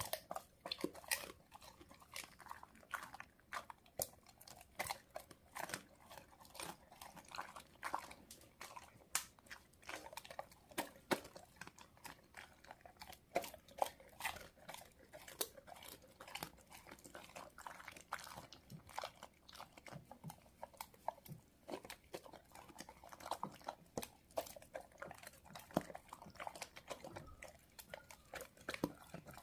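A pet dog and cat chewing meat and fish, with irregular crunches as bone-in pieces are bitten through.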